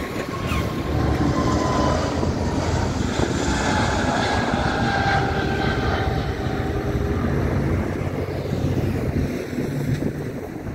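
Twin jet engines of an Airbus A320-family airliner at takeoff power during its takeoff roll: a steady rumble with a few faint tones slowly falling in pitch as it passes.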